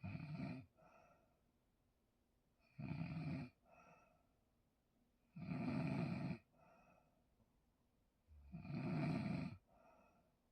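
A person snoring loudly in a steady rhythm: four long snores about two and a half seconds apart, each followed by a shorter, fainter sound.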